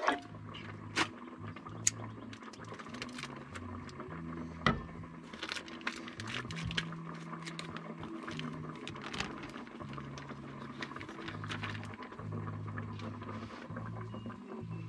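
Scattered crinkles and clicks of a clear plastic bag of chicken pieces being handled and opened, over quiet background music with a slow, stepping bass line.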